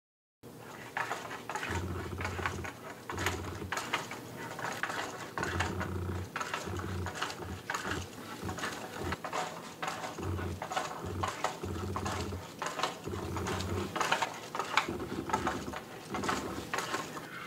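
LEGO Technic Strandbeest-linkage passive walker stepping down a sloped wooden board: plastic feet tapping on the wood and the linkage clattering, with many quick clicks and repeated heavier thuds. It starts about half a second in.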